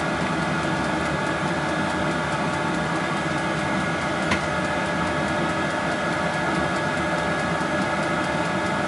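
Small diesel air heater running during startup: a steady fan noise with a constant whine, and a single click about four seconds in. The heater is still warming up, its combustion not yet self-sustaining.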